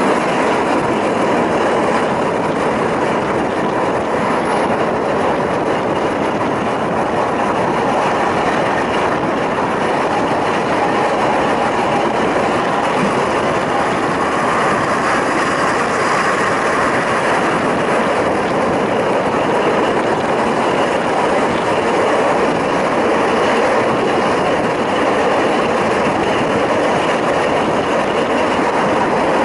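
Zillertalbahn diesel railcar running along narrow-gauge track, a steady, even mix of wheel-on-rail noise and engine, heard from on board.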